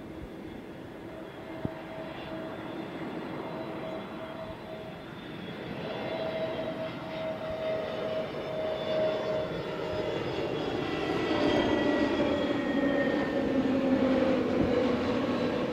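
Airbus A320-family jet airliner on landing approach with gear down, its engine whine growing steadily louder as it closes in. In the last few seconds the tones slide down in pitch as it passes by.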